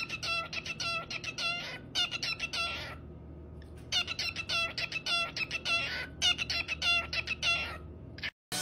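Cockatiel chirping in quick runs of short, repeated high notes, several a second, with a pause about three seconds in; the chirping cuts off suddenly near the end.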